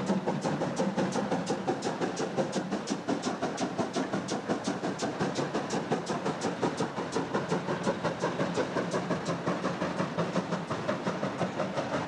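Steam locomotive 52 8154, a DR class 52 two-cylinder 2-10-0, running past with a rapid even beat of about five strokes a second over a steady rumble of the train.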